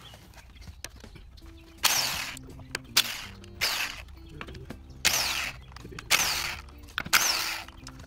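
Electric impact wrench hammering in about six short bursts, with its motor running between them, as it loosens the lug nuts on an old trailer wheel.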